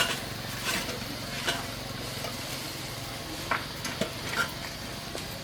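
A handful of light clicks and knocks, about six, scattered over a steady low hum.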